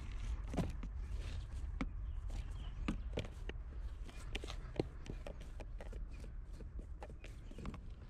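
Irregular sharp clicks and knocks, a few per second, over a steady low rumble.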